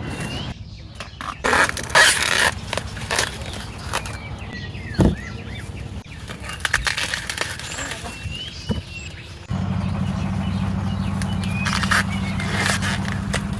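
Corn plants rustling and snapping as ears are picked, with small birds chirping here and there. About two-thirds of the way in, a steady low mechanical hum starts suddenly.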